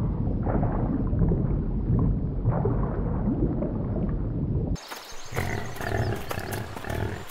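Low, rough rumbling sound effect that stops abruptly near the end, followed by a quieter, brighter crackling sound with clicks.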